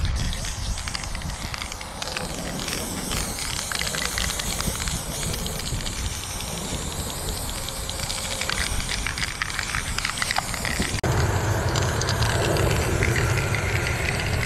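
Aerosol spray-paint can hissing as paint is sprayed, with fine crackling throughout. About eleven seconds in, the sound changes abruptly and a low rumble joins the hiss.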